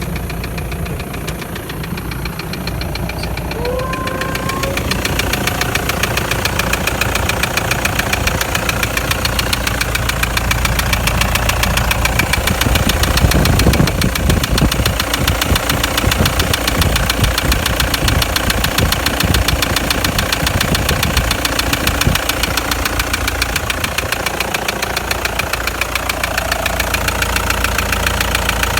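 Toyota 1KD-FTV four-cylinder turbodiesel running with a rapid, even knock. It gets louder a few seconds in and is loudest around the middle. The cause of the knock is not yet found: replacement injectors did not cure it, and mechanics found scoring in the third cylinder.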